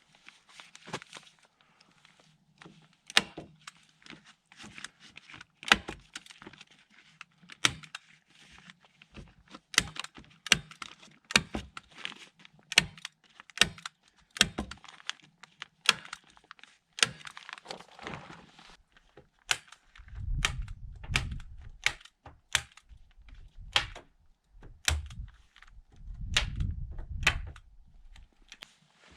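A long series of sharp, irregular knocks and cracks, a few a second at the busiest, with heavier low thuds in two stretches in the second half.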